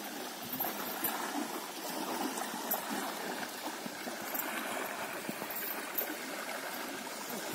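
Steady splashing and sloshing of river water as a horse wades through it.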